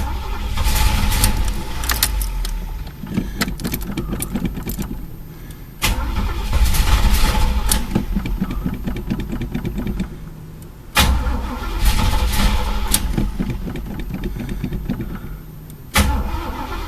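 Chevy El Camino engine being cranked on the starter four times in a row, each crank a few seconds long with short pauses between, without catching. It will not start because no fuel is reaching the carburettor: the tank is empty.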